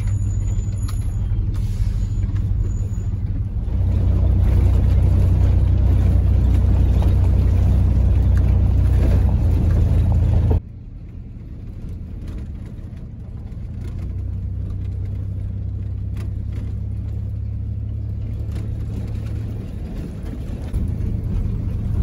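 Vehicle engine and tyre rumble heard from inside the cab while driving, a steady low drone. It grows louder about four seconds in, drops suddenly about ten seconds in, then slowly builds again.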